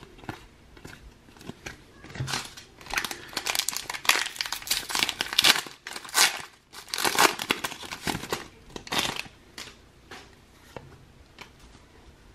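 Foil Pokémon booster pack wrapper crinkling in irregular bursts over several seconds as it is torn open and handled.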